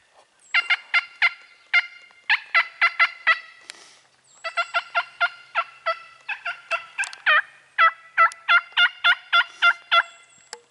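Turkey yelping and cutting: loud, sharp notes in quick runs of several a second, with short breaks between runs.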